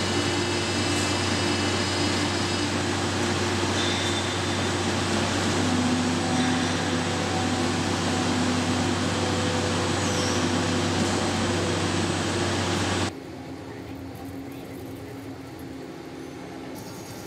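Steady industrial-hall noise: a constant hiss over a low machine hum. It drops suddenly to a quieter, lower hum about 13 seconds in.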